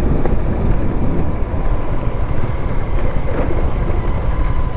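Motorcycle riding noise picked up by a helmet-mounted GoPro mic: a steady, heavy low wind rumble over the engine and road noise.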